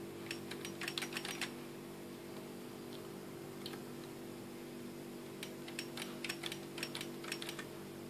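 Computer keyboard keys being typed in two quick bursts of clicks, one near the start and a longer one in the second half, over a steady low electrical hum.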